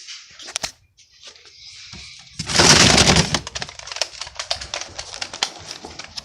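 Hard plastic toys clattering and knocking together as they are rummaged through, with a loud burst of clatter about halfway through and scattered clicks after it.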